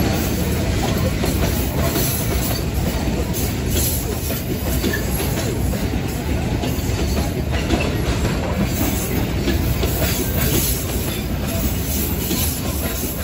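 Freight train of fuel tank wagons rolling past close by: a steady rumble of steel wheels on the rails, with occasional clicks.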